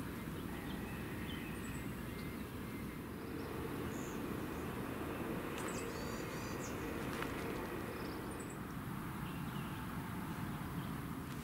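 Outdoor campground ambience: a steady low hum of distant road traffic with a few faint bird chirps.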